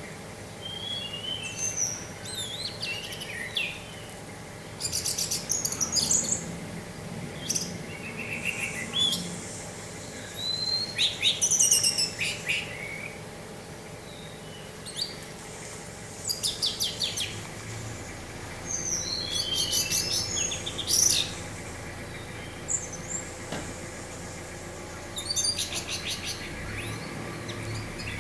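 Orange-headed thrush singing a varied song: high whistled notes, chirps and fast buzzy trills, delivered in phrases a few seconds apart.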